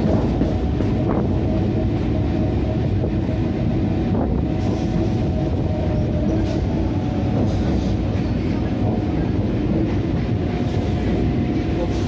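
Old Indian Railways suburban EMU train running, heard from on board: a steady, loud rumble of wheels on rail with a thin steady whine over it from about three seconds in, and a few faint clicks.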